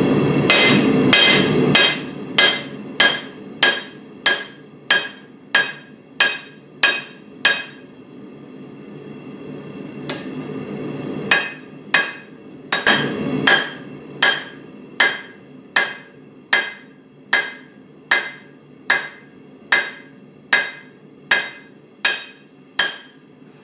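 Hand hammer striking a red-hot steel cleaver blank on an anvil: steady blows a little over one a second, each with a short metallic ring, and a pause of about two seconds a third of the way through. A forge's steady roar runs underneath.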